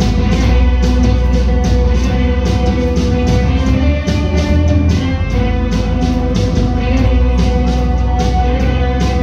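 Rock band playing live: electric guitars over a steady drum beat, with a long held note running through.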